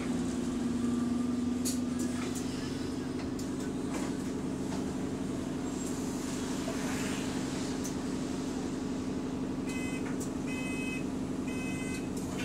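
Steady drone of a bus's engine and cooling fan, heard from inside the passenger saloon. About ten seconds in, short electronic door-warning beeps begin, repeating about once a second.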